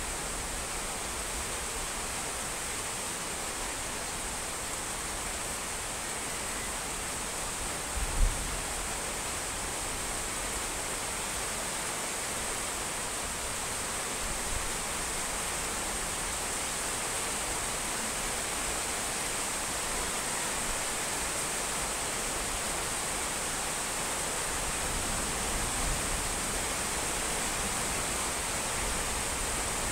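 Steady rain falling, an even hiss with no letup. About eight seconds in there is a single brief low thump.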